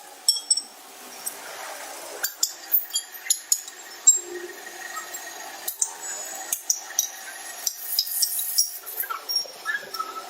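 Hammer striking steel in irregular blows, roughly one or two a second, each a sharp clink with a brief metallic ring.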